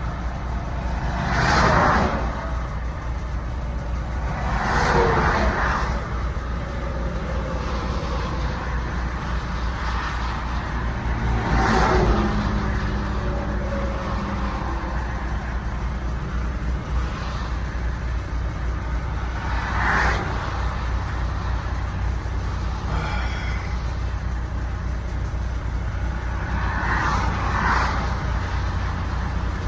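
Steady low rumble of an idling semi truck's diesel engine, heard from inside the cab. Passing traffic goes by about five times, each a rising and falling whoosh.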